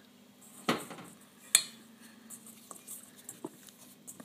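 Hands working dough in a stainless steel mixing bowl: a dull knock under a second in, then a sharp metallic clink that rings briefly about a second and a half in, followed by faint soft ticks of kneading.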